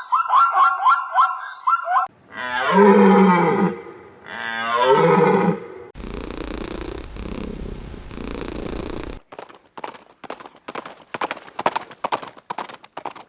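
A series of different animal calls, one after another: a rapidly repeating high-pitched call for about two seconds, two calls that fall in pitch, about three seconds of rough, noisy sound, then a run of sharp clicks.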